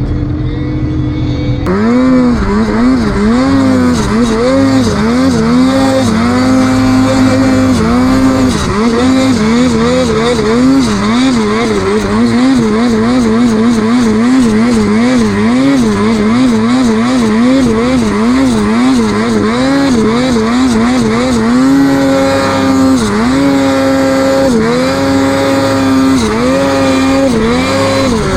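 Snowmobile engine revving hard in deep snow, its pitch swinging up and down rapidly as the throttle is blipped and worked, with steadier held stretches about two-thirds of the way through and near the end.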